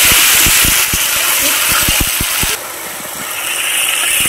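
Wet spice paste sizzling in hot oil in a karai, with a fast, irregular run of sharp low pops. The sizzle drops abruptly about two and a half seconds in, then builds up again.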